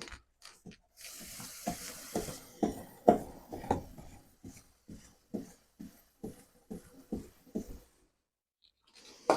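Aerosol chain lube spraying onto a motorcycle drive chain in a hiss lasting about a second, followed by a run of soft knocks about two a second.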